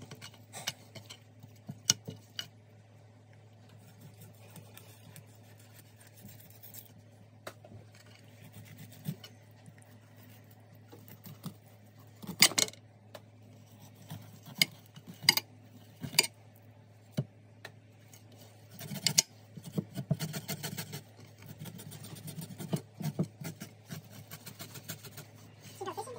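A fish being cleaned by hand on a hard countertop: scattered clicks, taps and rubbing, with a busier run of scraping and rubbing in the last several seconds. A low steady hum runs underneath.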